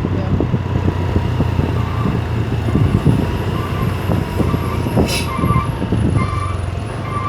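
Hino truck's diesel engine running steadily on the move, with a short hiss about five seconds in. A faint beep repeats under a second apart through the second half.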